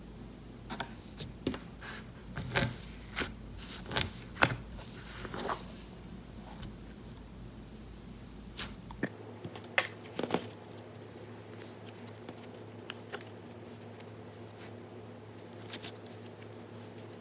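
Cloud slime being handled and stretched: a run of sharp crackles and small pops, thick in the first few seconds, then only a few more scattered later.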